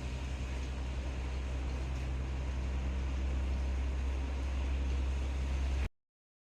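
Hitachi Shirokuma-kun RAS-AJ36M room air conditioner indoor unit running: a steady hiss of airflow over a low hum, stopping abruptly near the end.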